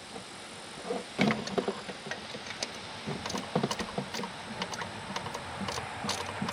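Ratchet wrench clicking in short runs while undoing the bolts of an engine's cylinder-head rear cover, with scattered light metallic knocks of the tool.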